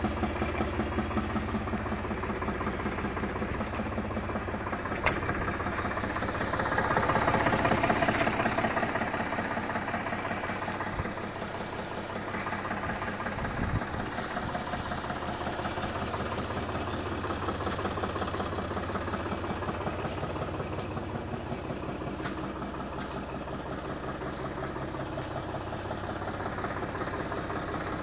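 Linde H30 forklift engine idling with an even, knocking pulse. It runs louder for a few seconds about seven seconds in, then settles back to a steady idle.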